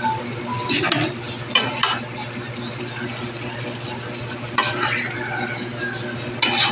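A spatula stirring a wokful of diced vegetables simmering in sauce, with about four scraping strokes against the pan over a steady sizzle of the boiling mix.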